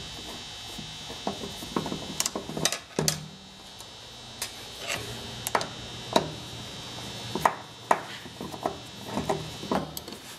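A screwdriver working at the screws of a Hutchens sander: irregular small clicks and metal knocks as the tool and the sander's housing shift on the bench. A steady high whine in the background fades out about four seconds in.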